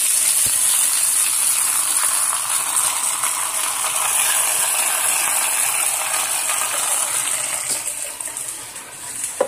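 Potatoes, onions and mushrooms sizzling in a hot frying pan: a steady hiss that fades near the end.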